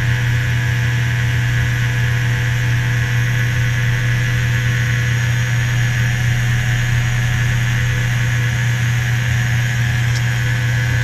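Electric fuel lift pump on a New Holland TS110 tractor running with a steady low hum, pushing diesel through the filter housing to purge air from the fuel system.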